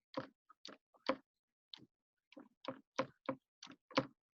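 Typing on a computer keyboard: a dozen or so separate keystrokes at an uneven pace.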